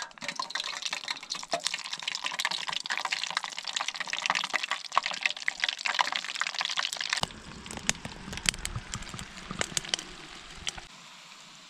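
Battered crappie pieces frying in hot oil in a small pot: a dense, crackling sizzle that thins to scattered pops about seven seconds in, when a low rumble also comes in.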